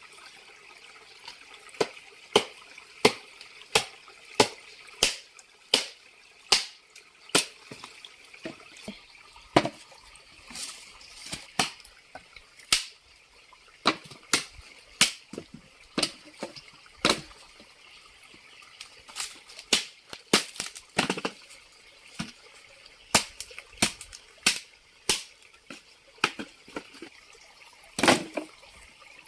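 Repeated sharp chopping strikes, mostly about one every 0.7 seconds with short pauses, over a steady hiss of running water.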